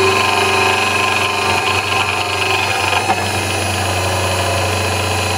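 Vitamix blender motor running steadily, spinning the blade assembly. Its worn bottom bearing, freshly packed with grease, runs without the blade rattle of bad bearings.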